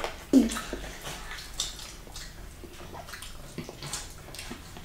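Children eating: wet mouth sounds of chewing and lip-smacking, with scattered soft clicks, and a brief falling vocal sound about a third of a second in.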